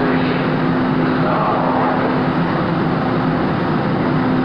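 MBTA Green Line light-rail trains in the station: a loud, steady mechanical hum with a low drone held at one pitch.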